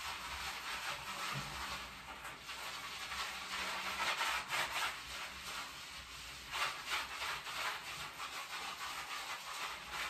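Ceramic shower wall tiles being scrubbed by a gloved hand: an uneven run of rubbing strokes, louder about four to five seconds in and again near seven seconds.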